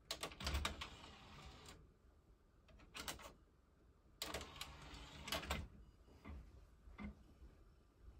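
DVD player's disc tray being loaded: the tray mechanism runs with a whir and clicks, a few clicks come near the middle as the disc is handled, and the mechanism runs again with clicks as the tray closes. Lighter ticks follow as the player starts reading the disc.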